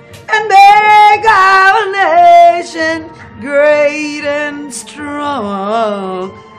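Unaccompanied singing of a national anthem, in several held sung phrases with short breaks between them.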